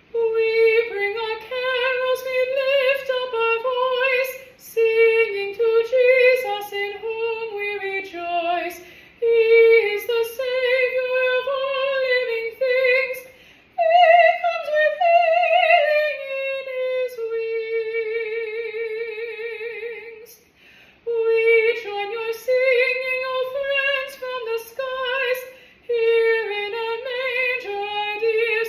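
A woman's solo voice singing a carol melody unaccompanied, in short phrases with brief breaths between them. About two-thirds of the way through she holds one long note with vibrato before the phrases resume.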